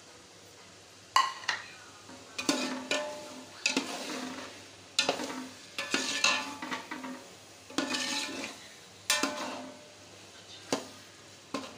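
Slotted steel spoon scraping and knocking against a metal pot while stirring chickpeas and masala in oil. It starts about a second in, with irregular strokes roughly every second, some leaving a brief metallic ring from the pot.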